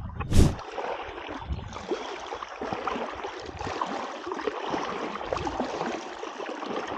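Legs in waders wading through shallow lagoon water: steady sloshing and splashing, with one thump just after the start.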